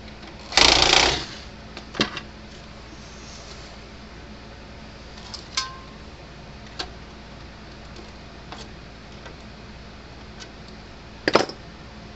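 Bench repair of an electric fence charger: a loud scrape or rustle lasting about half a second near the start, then scattered sharp clicks and taps of small tools and parts being handled, ending with a quick double tap. A faint steady hum sits underneath.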